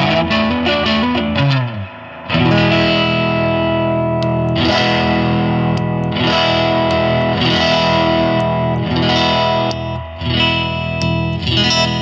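Electric guitar played through overdrive pedals, with distorted chords ringing out. In the first two seconds a note is bent up and back down, followed by a brief break. Near the end the Tonemender EQ pedal is switched in.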